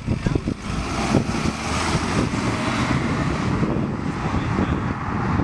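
Car engine and exhaust, loud and steady, as a modified car drives off and accelerates away.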